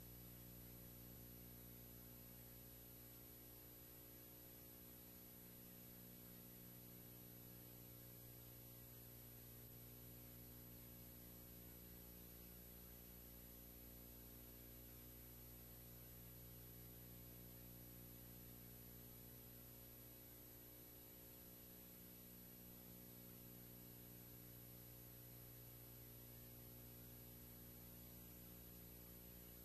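Near silence: a faint, steady electrical hum with hiss, and no other sound.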